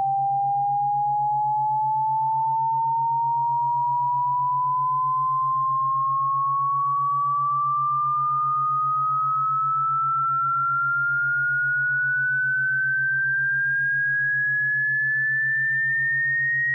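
Synthesized pure sine tone sweeping slowly and evenly upward in pitch, from a mid whistle to a higher one, played as a cat-repellent sound. Under it runs a quieter low hum that pulses rapidly and evenly.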